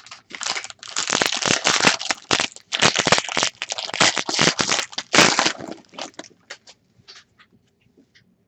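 A trading-card pack wrapper is torn open and crinkled in the hands: dense, crackly rustling for about five and a half seconds, then a few light clicks and rustles as the cards are handled.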